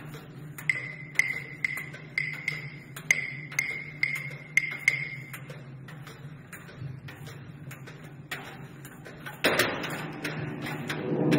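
Light percussion taps in a contemporary piece, about two a second, each a short high ringing ping, over a low steady hum. About nine and a half seconds in, a louder hit sets off a fuller, sustained sound.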